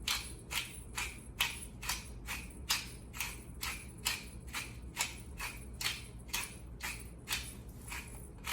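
Pepper grinder being twisted over the chicken marinade, an even run of short rasping grinds, about three a second.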